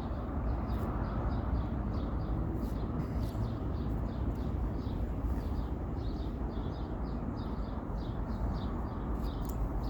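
Small songbird chirping in short, repeated high notes, over a steady low background rumble.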